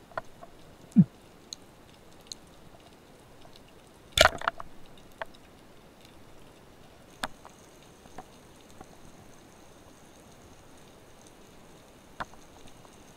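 Underwater, a Michelangelo Demo 2 85 speargun is fired: a sharp clack with a brief rattle a little over four seconds in. A low thump comes about a second in, with scattered faint clicks against a steady underwater hiss.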